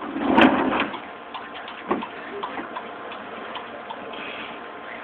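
Wooden wine barrel tumbler turned on its base by a kick: a rushing rumble for under a second, then a single knock about two seconds in and scattered light ticks.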